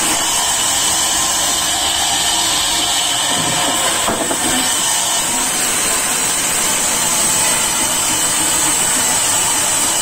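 Large sawmill band saw running steadily while a log is fed through its blade. The sound is loud and steady, with a high-pitched hiss.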